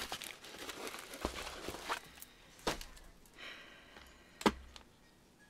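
Rustling of kit packaging being handled, dense at first, then a few separate sharp knocks, the loudest about four and a half seconds in.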